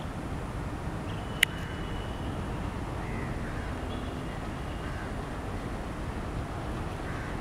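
Distant Alco diesel locomotive running as it approaches, a steady low rumble. A single sharp click about a second and a half in stands out above it.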